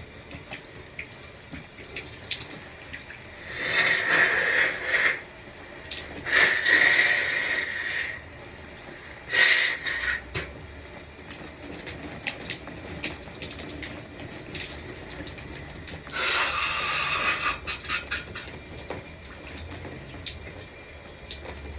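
A shower running steadily while a person sneezes four times over it: loud bursts about 4 and 7 seconds in, a short sharp one near 10 seconds, and another about 16 seconds in.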